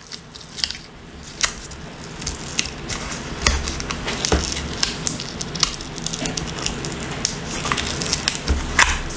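Adhesive sticker being slowly peeled up off a laptop LCD cable connector with a small flat metal pry tool and fingers: a soft crackling rustle that builds, dotted with irregular small clicks.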